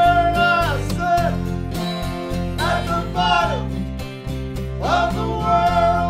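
Live band performance: a man sings three phrases over a strummed Gibson acoustic guitar, electric bass and drums with cymbals.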